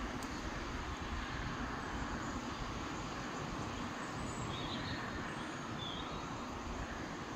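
Steady outdoor noise of distant road traffic, with wind rumbling on the microphone. Two faint high chirps are heard around the middle.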